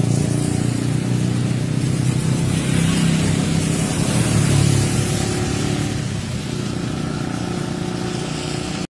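Motor vehicle engines running with a low hum, under a steady rushing noise.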